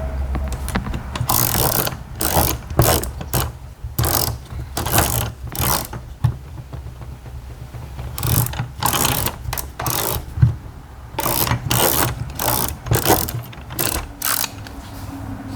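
A series of short, rasping mechanical strokes in quick groups, over a low steady hum.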